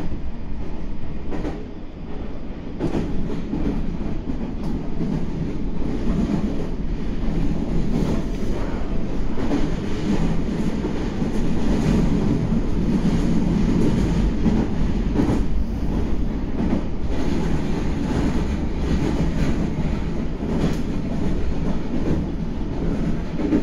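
Meitetsu 9500 series electric train running, heard from aboard: a steady low rumble with repeated knocks of the wheels over rail joints.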